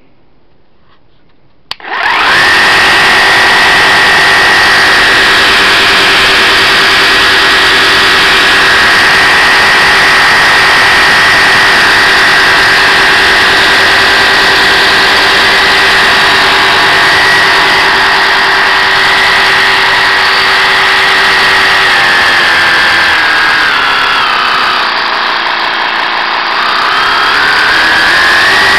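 Bosch GST 10,8 V-LI 10.8-volt cordless jigsaw switched on with a click about two seconds in. It runs with the blade in free air, a loud, steady high whine of motor and reciprocating blade. Near the end its speed sags to a lower pitch and then climbs back up.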